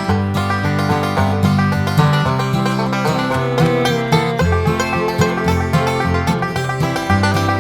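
Background music: an upbeat bluegrass-style tune of quickly plucked banjo and guitar over a steady bass.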